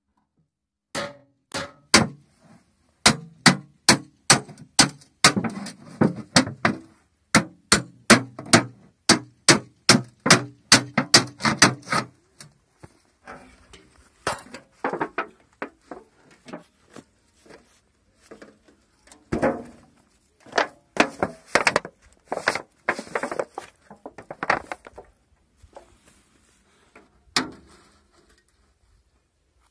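Thin tin-plate oil cans being hacked open with a machete: a fast run of sharp metal chops, about two a second, for the first twelve seconds, then slower, scattered cuts and scraping of the tin, with one last chop near the end.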